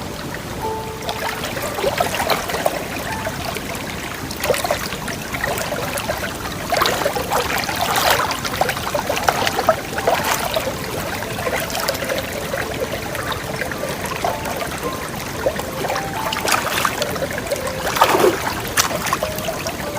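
Water splashing and trickling in irregular surges, with several louder splashes in the middle and again near the end.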